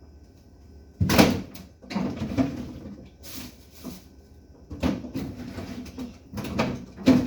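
Kitchen items being handled and moved about: several clunks and knocks with rustling between them, the loudest about a second in and another near the end.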